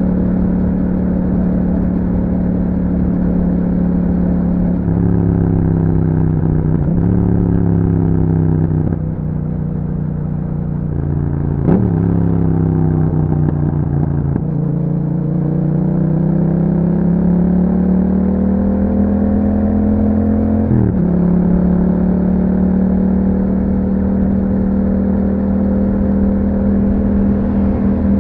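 2021 Yamaha MT-07's parallel-twin engine through an Akrapovic exhaust with a dB killer, under way. It holds steady at first, then the revs fall in steps through several gear changes as the bike slows. Then it pulls up through the revs, drops sharply at an upshift about two-thirds of the way in, and holds a steady cruise.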